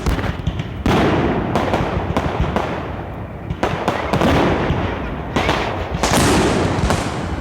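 Aerial fireworks bursting in a rapid series of loud bangs, one every half second to second, with a continuous crackling rumble between them.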